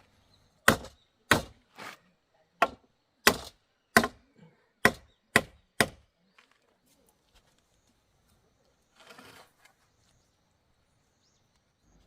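Wood being chopped with a hatchet or axe: about nine sharp strikes at an even pace, roughly two a second, over the first six seconds. A short rustle follows a few seconds later.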